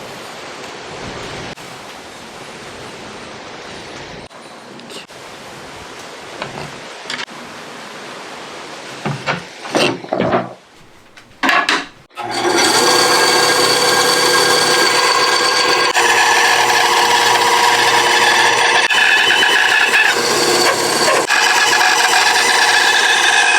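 Wooden knife-handle scales being worked by hand with a steady scraping, with a few clinks near the middle. About halfway through, a power tool starts and runs steadily, much louder, with a constant motor whine.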